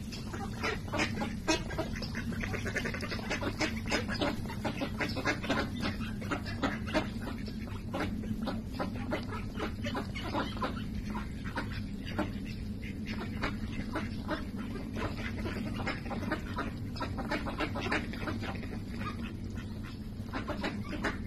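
Ducks foraging in grass: quick, irregular clicks and snaps of their bills as they nibble, with a few soft quacks, over a steady low rumble.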